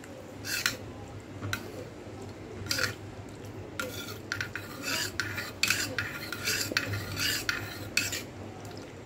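Steel spoon stirring jaggery water in a stainless steel bowl, the spoon scraping and clinking against the bowl's sides. A few separate strokes at first, then quicker, continuous stirring from about four seconds in.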